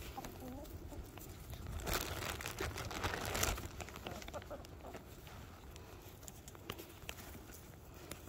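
Plastic snack bag crinkling as it is handled, loudest for about a second and a half around two seconds in, with lighter rustling afterwards. Faint clucking from the chickens and turkeys comes near the start.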